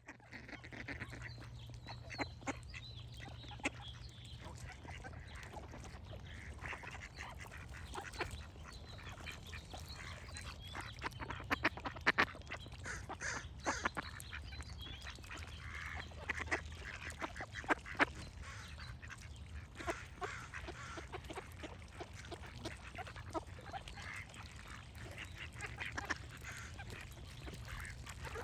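Ducks quacking in many short, repeated calls, loudest around the middle, with other birds calling in the background over a steady low hum.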